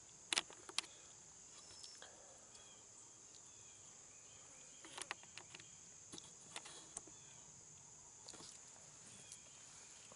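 Insects chirring steadily in a high pitch, with a few scattered sharp clicks and taps from small hand tools being handled while roasted hickory nuts are cracked.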